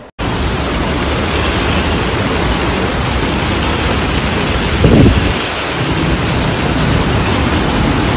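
Heavy downpour and rushing floodwater, a steady loud wash of noise, with a single loud low thump about five seconds in.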